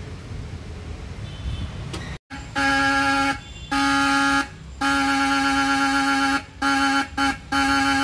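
Worn-out cheap car horn honked in about six presses, long and short, starting about two and a half seconds in; one flat, buzzy tone, because one horn of the pair no longer sounds at all. The owner says the old horns have failed.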